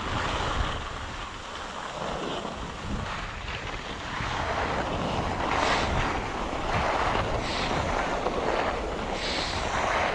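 Wind buffeting the microphone of a skier's camera, with the hiss of skis sliding and scraping over snow that grows louder about four seconds in and swells with each turn.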